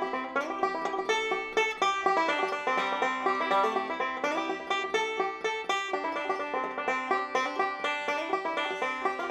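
Solo acoustic banjo playing a fast bluegrass tune, a steady stream of quickly picked notes.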